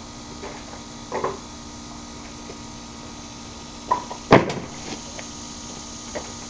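A few short knocks and one loud bang about four seconds in, over a steady low hum.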